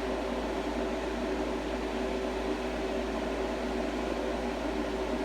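Steady hum of a running machine, with a constant low drone beneath a mid-pitched hum and no change in level.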